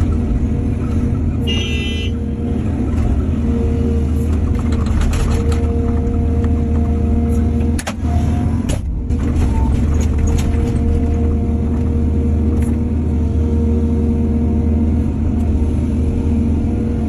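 Heavy diesel earthmoving machinery running steadily with a low rumble, with scattered clicks and knocks. A short high-pitched whine comes about two seconds in, and the sound briefly dips near the middle.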